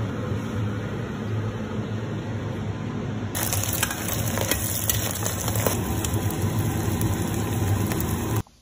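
Stir-frying in a wok over a steady low hum: about three seconds in, a loud sizzle starts as food hits the hot oil, with a metal spatula scraping and clicking against the wok. The sound cuts off suddenly near the end.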